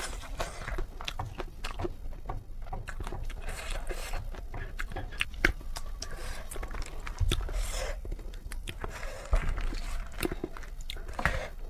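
Close-up mouth sounds of someone eating spicy noodles: chewing, with a quick irregular run of small clicks and smacks.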